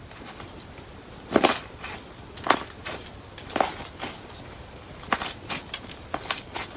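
Crunchy slime with broken candle-wax pieces being squeezed and pressed, making three crunching crackles about a second apart, then a quicker run of smaller clicks and pops.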